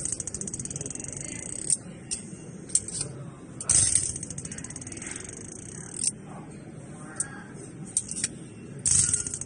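Portable Leeb hardness tester's impact device firing against a steel test block: sharp metallic clacks about 4 seconds in and near the end, with lighter clicks from loading and resetting the device in between.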